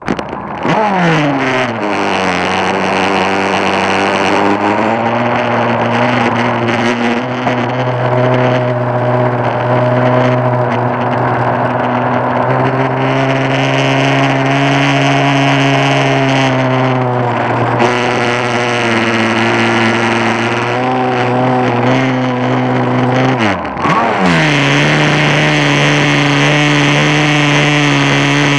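Arrow Shark RC boat's motor running, heard close up from a camera mounted on its deck. Its pitch falls steeply in the first two seconds, then holds steady with small rises and falls; about 23 seconds in it drops sharply and climbs back.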